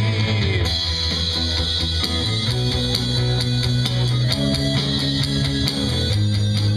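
Live rock band playing an instrumental passage with no vocals: electric guitars, keyboard and drum kit keeping a steady beat over a bass line that changes note every second or two.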